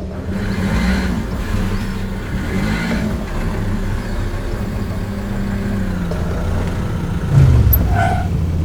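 Cartoon sound effects of vehicle engines running and revving during a car chase, with a louder swell about seven seconds in.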